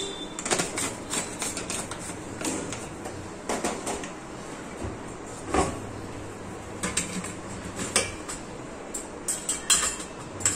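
Scattered clicks and clinks of steel kitchen containers and utensils being handled, including the lid of a stainless steel spice box being taken off. The knocks come irregularly, a few close together near the end.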